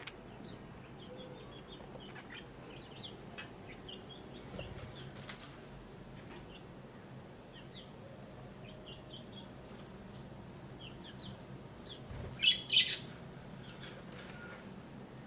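Pet lovebirds chirping, a steady scatter of short, high chirps, with two loud sharp bursts close together about twelve seconds in.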